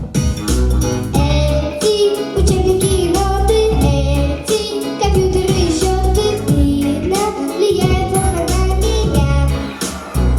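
A young girl singing a pop song in Russian over backing music with a steady bass beat.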